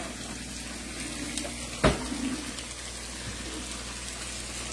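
Oil sizzling steadily in a frying pan, with one sharp knock about two seconds in.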